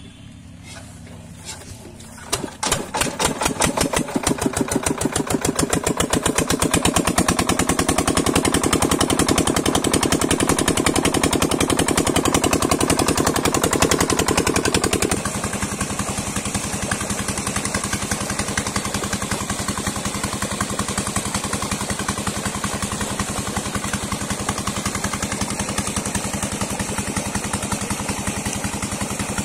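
Diesel engine of an 8 hp irrigation water-pump set catching about two seconds in and settling into a steady, even running beat. It drops somewhat in level about halfway through and runs on steadily.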